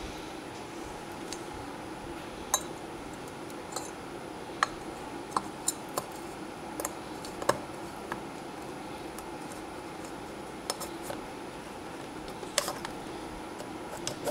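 Light metallic clicks and clinks, about a dozen scattered through, as a Yamaha Banshee cylinder is handled and worked down over its piston and rings onto the studs, over a steady low hum.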